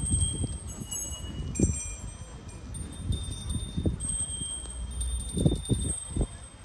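Small metal chimes ringing at many different pitches, each note lasting under a second, with soft low thumps now and then.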